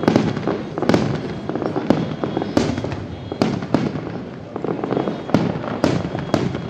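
Fireworks display with aerial shells bursting close by: about a dozen sharp bangs at irregular spacing, each trailing off into an echo.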